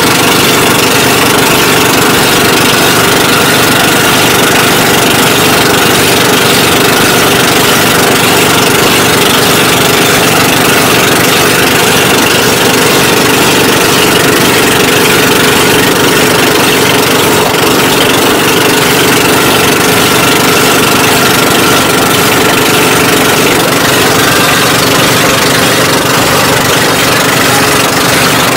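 Engine of a motorized outrigger boat (bangka) running steadily and loudly while under way, heard from on board.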